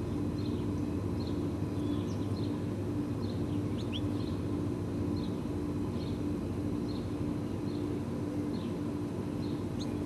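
Steady low mechanical hum, like distant traffic or a machine, with faint, short, high bird chirps repeating about every second over it.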